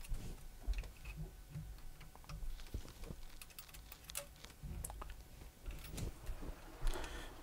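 Faint, scattered small clicks and taps of hands handling the plastic extruder of a Prusa MK3S 3D printer, working its idler door to check that it moves freely.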